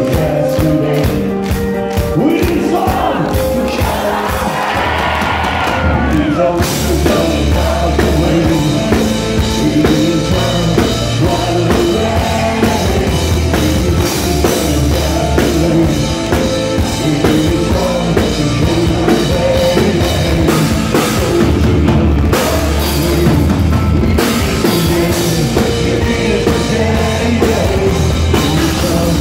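Live rock band playing a song through a concert PA, drums and heavy bass to the fore, recorded from within the crowd.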